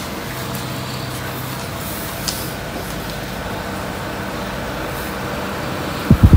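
Steady background rumble and hiss, with a few loud low thumps near the end.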